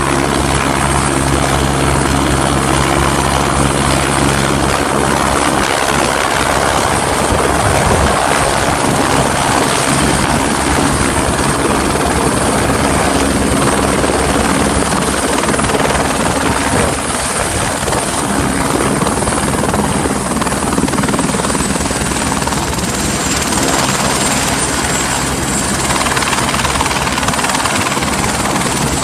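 Eurocopter AS350BB Squirrel helicopter running loud and steady: the main rotor beat with the single turbine's high whine over it. The whine drops slightly in pitch about three-quarters of the way in.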